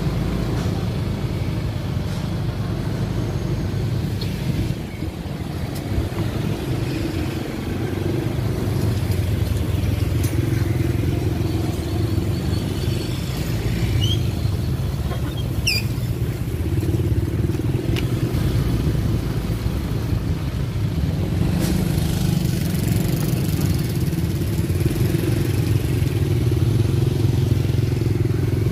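A motor vehicle engine running steadily, its drone swelling and easing a little in level, with a few brief high squeaks about halfway through.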